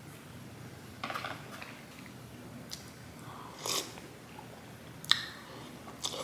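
Close-up mouth sounds of someone eating sushi: chewing, with four short crisp crunches or smacks spread through.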